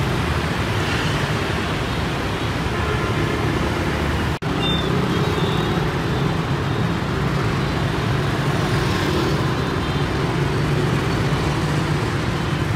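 Busy street traffic, mostly motor scooters and motorbikes with cars and a small truck passing: a steady mix of engine and tyre noise. The sound drops out for a moment about four seconds in, then carries on.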